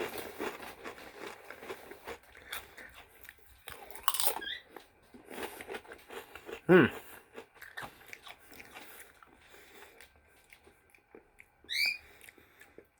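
Close-up crunching and chewing of Doritos tortilla chips, in uneven bites that thin out after the first few seconds. A short falling tone sounds about halfway through, and a brief high rising chirp near the end.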